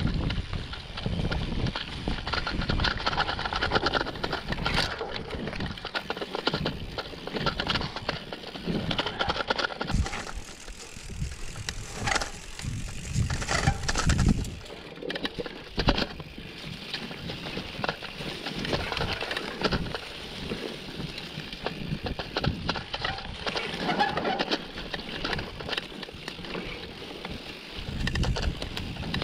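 Mountain bike being ridden along a dirt trail: a steady rush of tyre and wind noise with frequent clatter and rattles from the bike over rough ground.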